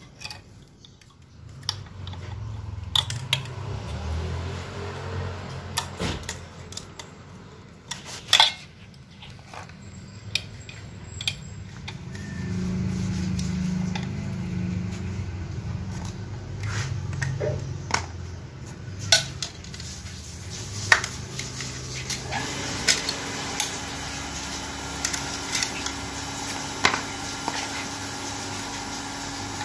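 Metal parts of an automatic transmission clinking and knocking as they are handled during disassembly, many separate sharp clicks over a low rumble. A steady hum comes in about three-quarters of the way through.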